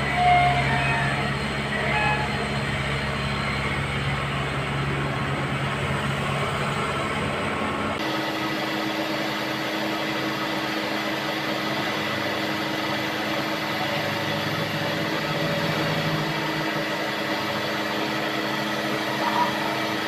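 Diesel engine of a Hyundai wheeled excavator running steadily while it digs and swings; the engine's tone changes abruptly about eight seconds in.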